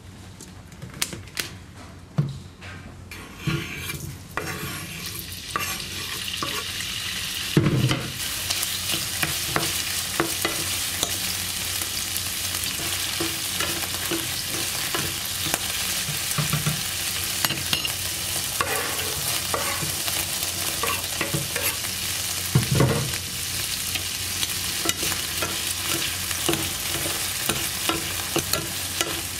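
Food frying in hot oil in a pan, with a steady sizzle and a utensil stirring and knocking against the pan. A few sharp clicks come first, then the sizzle builds over several seconds to a steady level, with a couple of louder knocks along the way.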